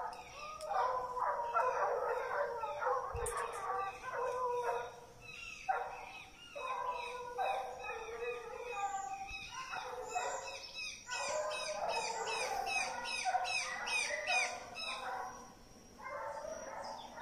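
Several treeing walker coonhounds baying and howling together, their long, bending voices overlapping at different pitches, with short breaks.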